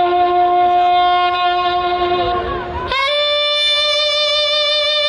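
Music of long held wind-instrument notes, each sustained for a couple of seconds, moving to a higher note about three seconds in.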